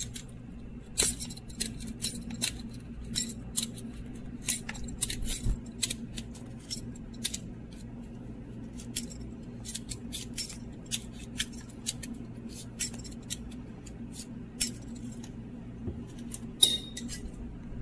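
Parmesan cheese being shaved into thin slices: a series of short, light scraping strokes at an irregular pace, thicker in the first half and sparser later. A faint steady low hum lies underneath.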